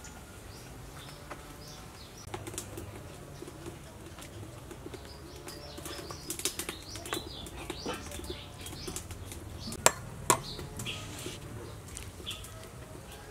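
Food-prep handling sounds: a spoon scraping and tapping in a plastic bowl of minced pork, and hands pressing the meat onto a blanched cabbage leaf on a wooden board. Scattered small clicks and taps run through it, with two sharper knocks about ten seconds in.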